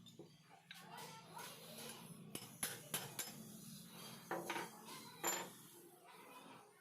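Metal tool parts clinking and knocking against each other as they are handled: a string of sharp clinks and clanks, the loudest a little past halfway through.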